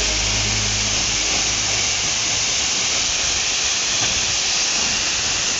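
Waterfall's falling water rushing steadily, a dense even hiss; the tail of background music fades out right at the start.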